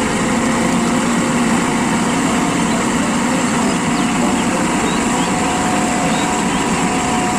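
Truck engine running steadily, an engine sound laid over the toy dump truck.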